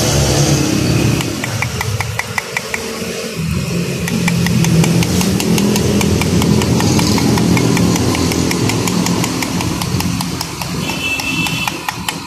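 An engine running steadily, with a fast, even ticking laid over it.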